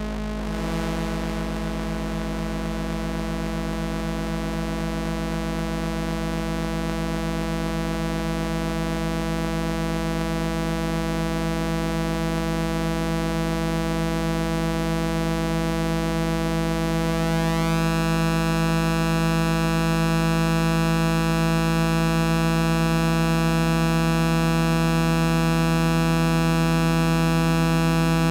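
Flight of Harmony Infernal Noise Machine desktop analog synthesizer holding a long, layered drone: a steady low tone with many sustained overtones and a hiss of noise above. About seventeen seconds in, an upper layer sweeps up in pitch, and the drone grows slowly louder.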